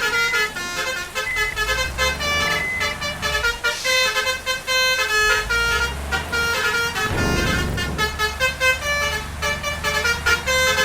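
Basuri 'telolet' multi-tone musical air horn on a bus or truck playing a quick melody of short, stepped notes, over a low vehicle rumble.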